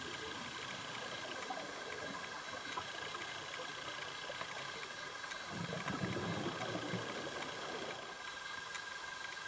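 Underwater ambience through a diver's camera housing: a steady hiss with a faint whine, and about halfway a low bubbling rumble for about a second and a half, the exhaust bubbles of a scuba diver breathing out through the regulator.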